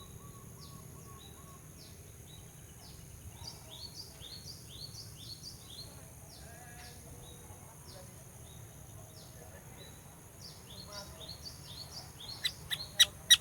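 Sooty-headed bulbul calling: a quick run of short, high, downward-slurred chirps, then a few loud, sharp call notes near the end, over a steady hiss.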